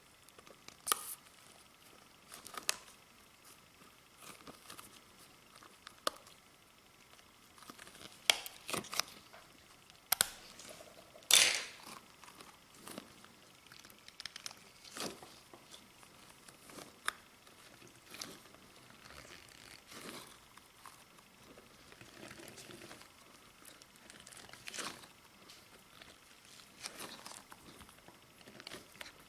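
Clear slime being squished and stretched by hand: irregular sticky pops and crackles with short gaps between them, the loudest a little over ten seconds in.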